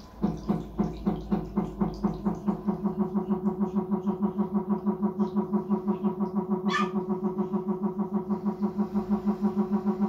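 Samsung Diamond washing machine giving a loud pulsing electrical hum, like a transformer, that starts abruptly and whose pulses quicken from about three to about five a second. The repairer puts the fault behind it down to a failed motor and water-level sensor. A single sharp click about seven seconds in.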